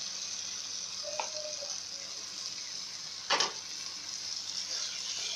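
Tomato masala sizzling steadily in a pan as fried potatoes and eggplant are tipped in and stirred with a wooden spatula, with one sharp knock a little past three seconds in.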